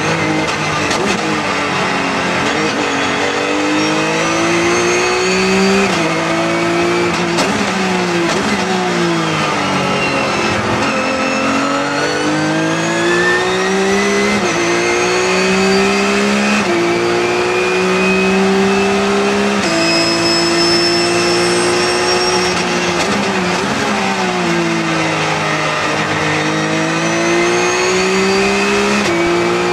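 Car engine heard from inside the cabin during a fast lap, its pitch climbing under acceleration and dropping suddenly at each upshift, several times over. Twice it falls away and rises again as the car slows for a corner and pulls out of it.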